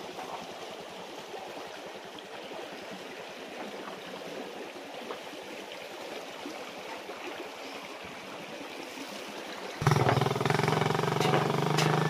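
Floodwater rushing steadily in a swollen forest stream. About ten seconds in it cuts off abruptly, giving way to a louder, steady motorcycle engine running.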